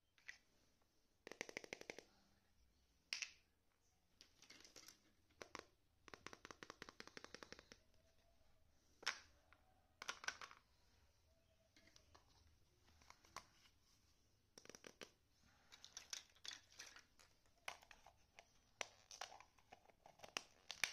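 Plastic toy kitchen pieces clicking and clattering as they are handled and set down on a wooden floor, in scattered single clicks and several runs of quick rattling.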